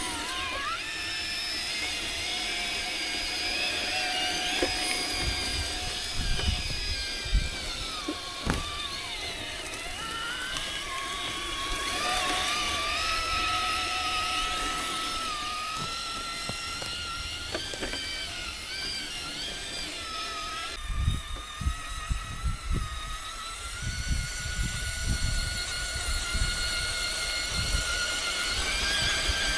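Electric motor and gear whine of an RC rock crawler, rising and falling in pitch as the throttle changes while it crawls, with scattered low knocks and bumps, more of them in the later part.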